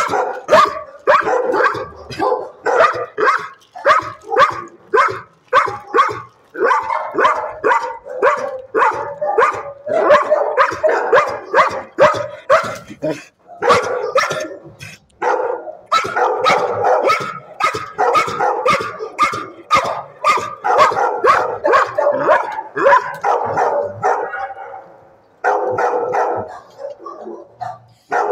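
Shelter dog barking excitedly at about three barks a second, almost without a break, with one short pause near the end: demand barking for treats.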